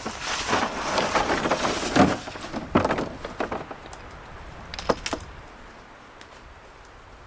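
Rustling and scraping of gear being handled for about three seconds, with sharp knocks at about two seconds, just under three seconds and near five seconds, then it goes quieter.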